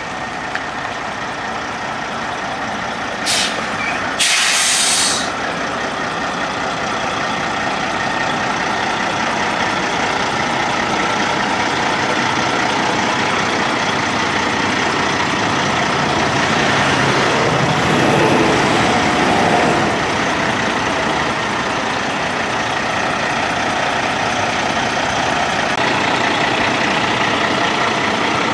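Caterpillar C15 Acert 14.6 L inline-six twin-turbo diesel in a Kenworth T2000 semi truck running steadily. Two short bursts of hissing air from the truck's air system come about three and four seconds in, the second lasting about a second.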